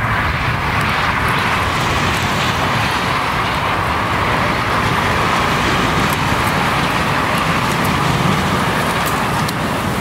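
Continuous traffic noise from the A7 autobahn: tyres and engines of passing vehicles blending into one steady rush, with no single vehicle standing out.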